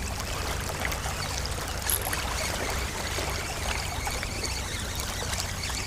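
Steady washing and trickling of water, with no single event standing out.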